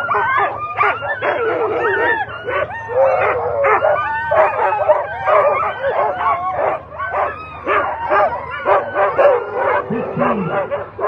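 A harnessed team of Alaskan husky sled dogs barking and yelping, many dogs at once and without a pause. It is the excited din of a sled dog team held at a race start, eager to run.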